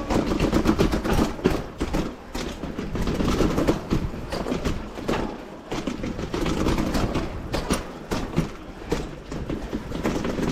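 Mountain bike rattling and clattering as it rolls fast over rough ground: a dense run of irregular knocks and clicks over a steady low rumble of wind on the microphone.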